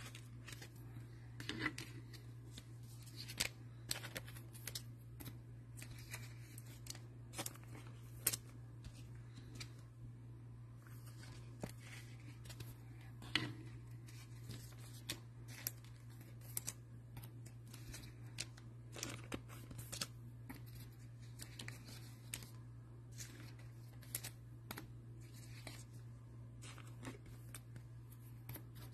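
Faint handling of trading cards and their plastic holders: scattered small clicks and rustles, with a steady low hum underneath.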